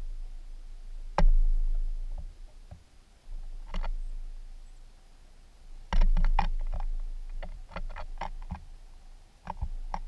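Irregular sharp taps and knocks with low thuds on the feeder: one loud knock about a second in, another near four seconds, then a quick run of a dozen or so taps, from small birds such as black-capped chickadees landing on the feeder and pecking at it.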